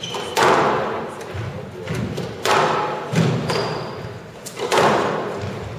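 Squash rally: the ball struck hard by the rackets and smacking into the walls, three loud hits about two seconds apart with softer knocks between, each echoing in the hall. Brief high squeaks of court shoes on the wooden floor.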